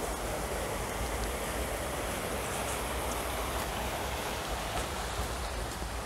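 Steady rush of water running down a pool's water slide and splashing into the pool.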